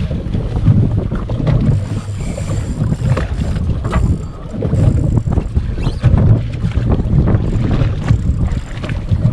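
Wind buffeting the microphone aboard a fishing boat at sea, a loud uneven rumble with many short knocks.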